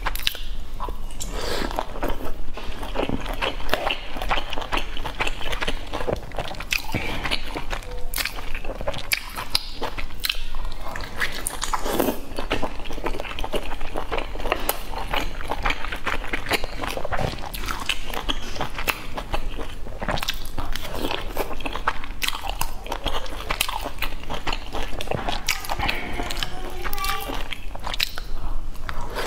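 Close-up mouth sounds of a person biting and chewing boiled dumplings dipped in sauce: a continual run of short smacks and clicks.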